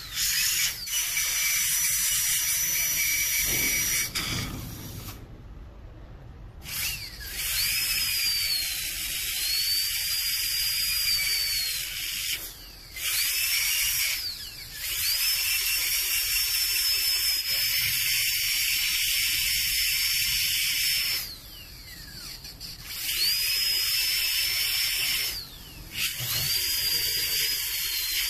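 High-speed dental air-turbine handpiece (dental drill) run in about six bursts of a few seconds each: a high thin whine over a hiss of air and water spray, the pitch climbing as it spins up and dropping as it is let off.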